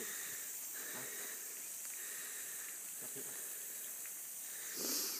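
Garden sprinkler spraying water over flowerbeds: a steady hiss of spray, briefly louder near the end.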